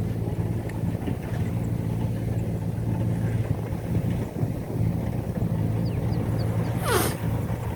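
Kubota combine harvester's diesel engine running steadily at work. About seven seconds in, a brief falling whistle cuts through.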